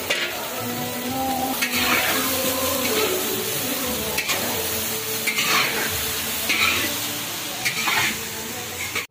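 Shredded cabbage and carrot sizzling in a wok while a metal spatula stirs and scrapes the pan, with a scraping stroke every second or so over the steady sizzle.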